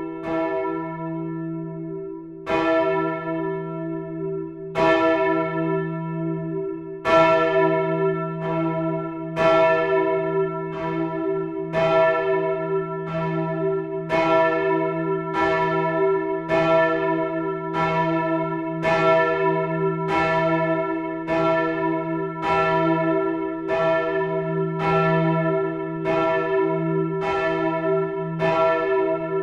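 Several church tower bells swinging and ringing together in a peal, their tones overlapping into a steady ringing hum. The strokes come about every two seconds at first, then more than once a second from about seven seconds in as more bells' strokes mix in.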